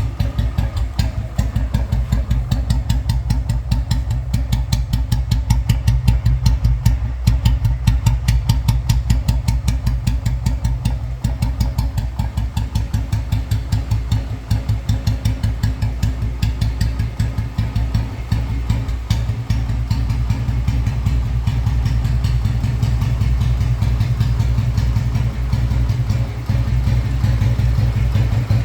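Royal Enfield Bullet 500's single-cylinder four-stroke cast-iron, heavy-crank engine idling with its slow, even exhaust thump. The beat quickens briefly a few seconds in.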